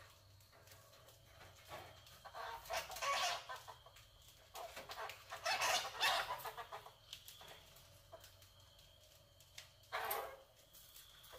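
Rats caught in a wire-mesh cage trap squeaking and scuffling, in three short bouts: one about two and a half seconds in, a louder one around six seconds, and a brief one near the end.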